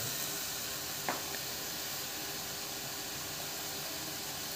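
Chilli paneer frying in an iron wok on the stove, making a steady sizzling hiss. There is one short click about a second in.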